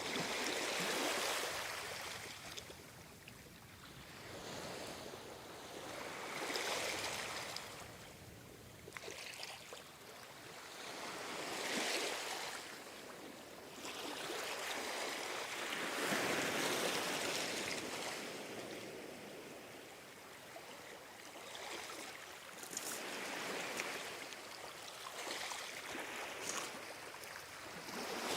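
Ocean waves breaking and washing up on shore, each wave swelling and fading about every five seconds.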